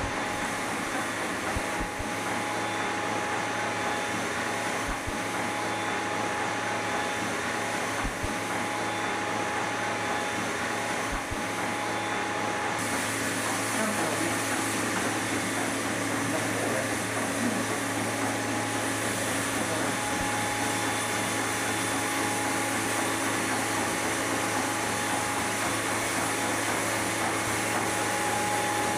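Centrifugal olive oil separator running at speed: a steady whirring hum with a constant whine, clarifying the freshly pressed oil. The noise turns a little brighter and hissier about halfway through.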